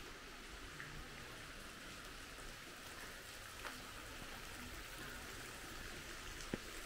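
Faint, steady hiss like falling rain or running water, with a small tick partway through and a sharper click near the end.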